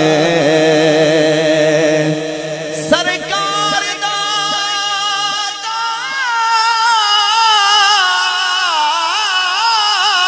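Male reciter singing a devotional kalam through a microphone: a drawn-out melodic line of long wavering, ornamented notes, over a steady low hum that drops out about two-thirds of the way through.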